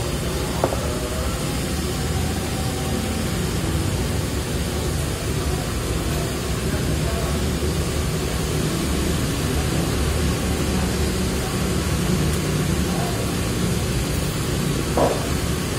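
Steady rushing background noise, with a soft tap of chopsticks against a porcelain bowl about half a second in and again near the end.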